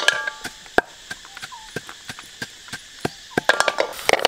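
Wooden pestle pounding in a clay mortar, steady knocks about three a second, with a few ringing clinks of mussel shells going into a metal wok. Sizzling starts near the end as the mussels heat in the pan.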